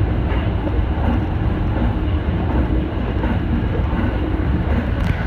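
Tsukuba Express electric commuter train running steadily at speed, heard from inside the front car: even wheel-on-rail and running noise, with one faint click near the end.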